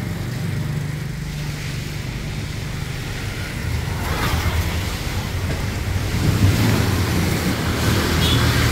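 Road traffic passing on a wet street: tyres hissing on the wet road over a low engine hum, growing louder about six seconds in as a vehicle comes closer.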